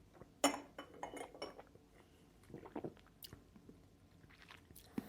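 Quiet mouth sounds of whisky being tasted: scattered lip smacks and the spirit worked over the tongue. About half a second in comes one sharp clink with a brief ringing.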